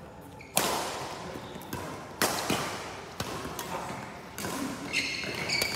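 Badminton rackets striking the shuttlecock in a rally, four sharp hits about a second or so apart, each ringing in the large hall. Shoes squeak briefly on the court floor near the end.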